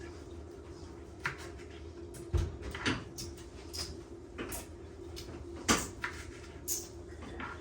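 Scattered light knocks and clicks of small objects being handled, about ten in all, the loudest a little under six seconds in, over a steady low hum.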